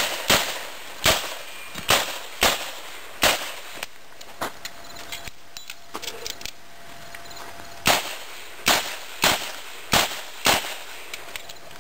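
Revolver fired in a quick string of six shots, then a pause of about four seconds with faint clicks while it is reloaded, then five more shots about half a second apart.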